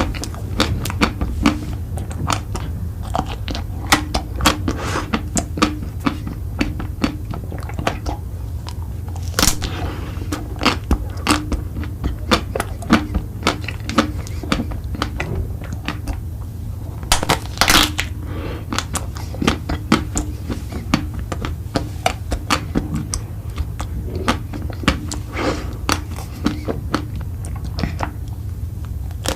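Close-miked eating: rapid crisp crunching and chewing of crunchy food, with louder bites about nine and seventeen seconds in, over a steady low hum.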